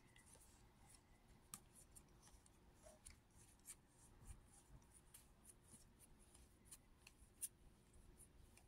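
Near silence with faint, scattered clicks and light rubbing of trading cards being handled and flipped through, with one sharper click near the end.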